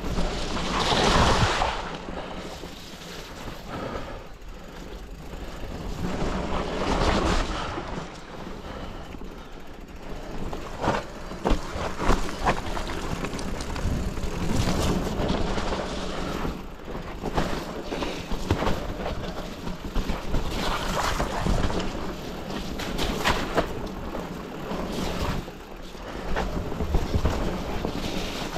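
Mountain bike descending a dirt forest trail: a steady rush of tyres on dirt and wind over the camera, with frequent sharp knocks and rattles as the bike hits roots and bumps. The loudest rush comes about a second in.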